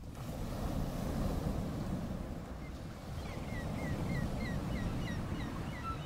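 A small bird chirping over a steady low outdoor rumble. The chirps turn into a quick run of about three a second in the second half.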